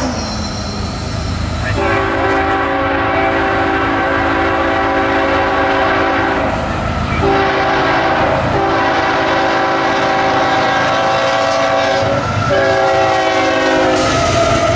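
Nathan K5HL five-chime air horn on a CSX ES44AH locomotive sounding a series of long and short blasts for a grade crossing as the train approaches. Near the end the locomotive passes close and the horn chord drops in pitch, over the rumble of the engines and wheels.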